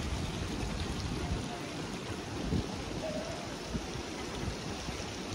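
City street ambience: a steady wash of noise with faint voices now and then.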